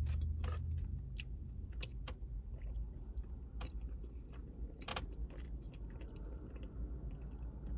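A person chewing a mouthful of fried chicken liver, with scattered soft mouth clicks, over a steady low hum.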